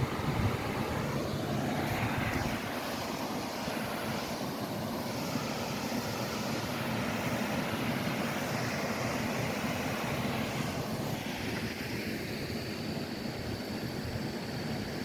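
Waterfall rushing: a steady, full-range wash of falling water, with its tone shifting slowly a few times.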